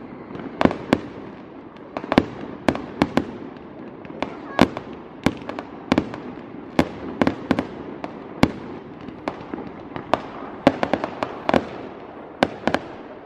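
Fireworks display finale: a rapid, irregular run of sharp bangs from bursting aerial fireworks, some in quick clusters, over a constant noisy background.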